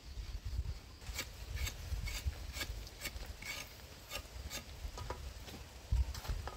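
Knife scraping and peeling the skin off cassava roots: short irregular scrapes and clicks, about two or three a second. A dull thump near the end.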